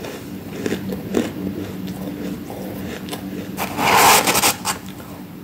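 Metal spoon scraping and digging into a tub of freezer frost, one loud crunchy scrape lasting about a second, about four seconds in, after a few faint crackles in the first second or so.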